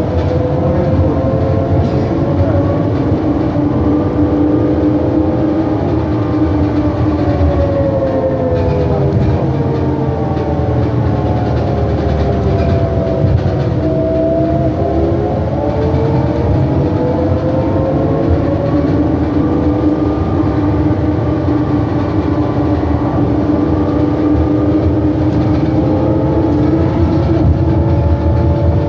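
New Flyer E40LFR electric trolleybus running: several whining tones from its drivetrain and axle drop in pitch as it slows about halfway through, then climb again as it picks up speed, over a steady heavy rumble. The uploader calls the axle sound weird.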